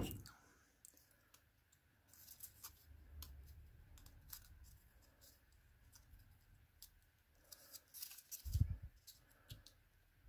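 Faint crinkling and clicking of lightweight cardstock as fingers press and roll a paper strip around a small 3D paper bow, with one sharp tap as it begins and a soft low thump about eight and a half seconds in.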